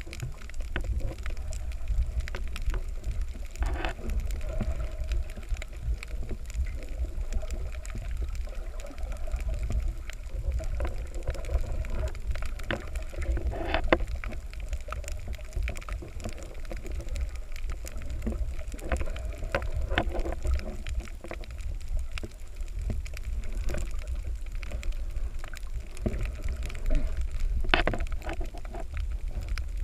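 Muffled underwater sound through a waterproof camera housing: a steady low rumble of water with a faint wavering hum above it and a few brief knocks, about 4, 14 and 28 seconds in.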